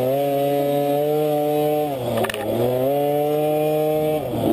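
KTM 50 youth dirt bike's 49 cc two-stroke single-cylinder engine revving high under load, dropping off about two seconds in and again near the end, then climbing back.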